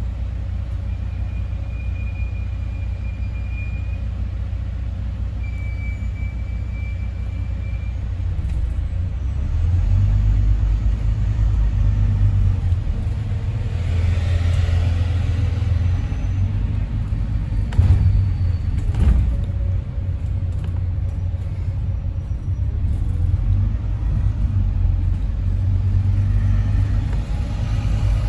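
Diesel bus engine rumbling, heard from inside the bus. It runs steadily while the bus stands, then gets louder about a third of the way in as the bus pulls away and drives on. Two faint high steady tones sound early on, and there are two sharp knocks about two-thirds of the way through.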